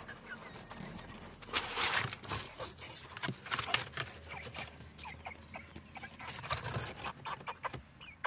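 Cardboard carrier box being opened by hand, its flaps scraping and rustling, with a few short soft clucks from the young bantam rooster inside.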